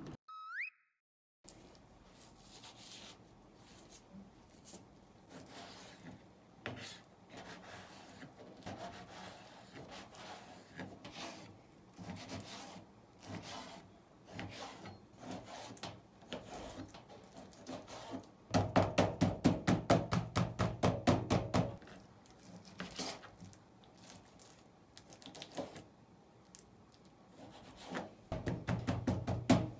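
Kitchen prep on a wooden cutting board: scattered light clicks and rubbing of a knife and food on the board. About two-thirds of the way through comes a run of quick, even knife chops, about five a second for some three seconds, and another short run of chopping near the end.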